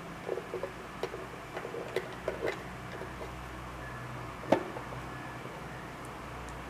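Light, irregular clicks and taps of a small screwdriver and screws against the resin printer's plastic front cover as it is screwed back on, with one sharper click about four and a half seconds in.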